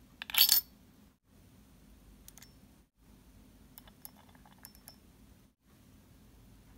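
The small metal lid of a miniature cooking pot clinks sharply against the pot's rim as it is handled and lifted off. This is followed by a few faint, light metallic clicks.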